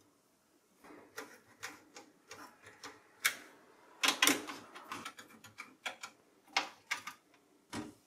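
Scattered light clicks and taps of metal and plastic as a CPU heatsink and fan is seated and fastened onto the motherboard inside an HP ProDesk 600 G1 small-form-factor case. The sharpest ticks come about three and four seconds in.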